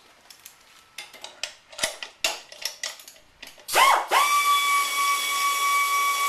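A run of light metallic clicks and knocks, then a power tool starts up a little past halfway, rising in pitch to a steady high whine over a loud hiss.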